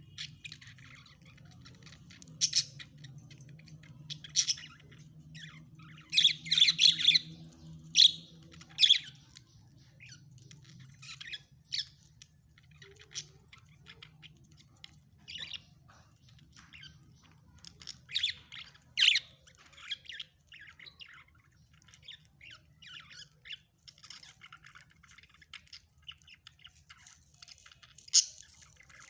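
Pet parrot giving short squawks and chirps at irregular intervals, with louder clusters of calls about a quarter of the way in, around two-thirds through and near the end.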